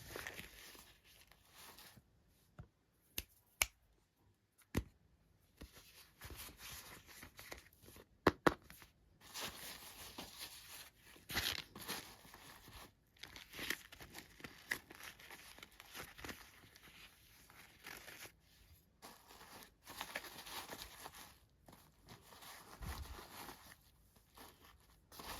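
Toy packaging being torn open and crinkled by hand in close-up, with a few sharp clicks and taps in the first several seconds, then nearly continuous rustling and tearing.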